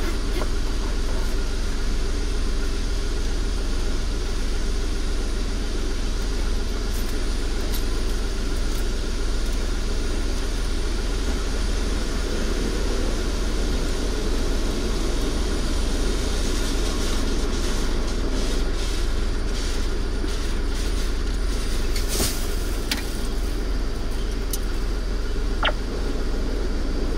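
Steady low mechanical drone heard from inside a car in an automatic car-wash bay, with a few scattered light clicks and taps in the second half.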